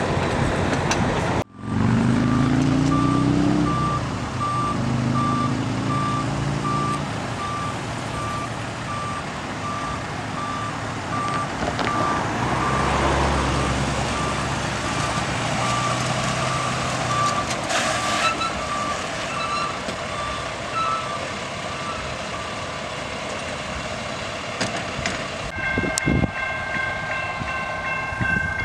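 Work truck's engine running as it moves, its reversing alarm beeping in a steady string that stops about halfway through. A horn starts sounding near the end.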